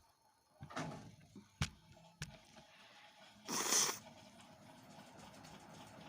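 A person's forceful blast of breath through the nose, about half a second long, about three and a half seconds in, the loudest sound here. It is preceded by a brief breathy vocal sound and two sharp clicks.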